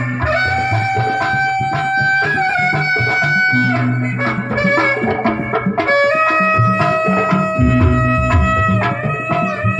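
Pencak silat accompaniment played loud through a sound system: a reed wind instrument holds long melody notes that step up and down, over a repeating pattern of hand-drum strokes.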